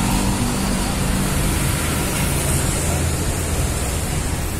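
Busy city street traffic: a steady rushing noise of engines and tyres with a low rumble underneath.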